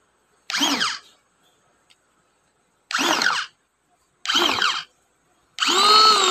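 Small UPUPIN electric meat grinder/food chopper running in four short pulses as its top button is pressed and released, the motor whining up to speed and winding down each time; the last pulse is the longest, a little under a second.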